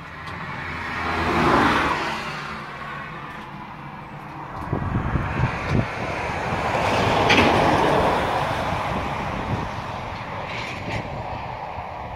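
Road traffic: two vehicles pass, each a rise and fade of tyre and engine noise, the second about seven seconds in. A few low thumps come between them, about five seconds in.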